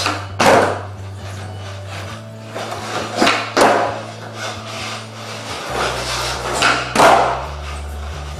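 Skateboard kickflips: the tail popping and the board landing on a hard floor, heard as sharp knocks, one about half a second in and then two pairs a third of a second apart. Background music with a steady bass line plays throughout.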